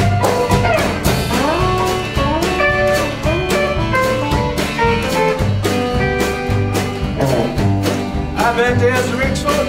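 Instrumental break of a country song: an electric guitar plays a lead solo full of bent, gliding notes over a steady shuffle beat from acoustic rhythm guitar and bass.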